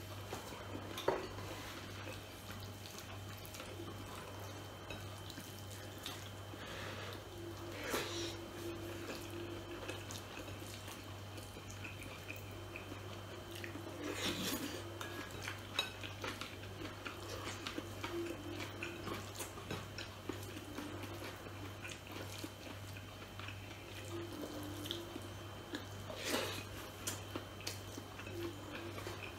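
A man eating with his hands at close range: quiet chewing and mouth sounds, with a few sharp smacks or clicks spread through, over a steady low hum.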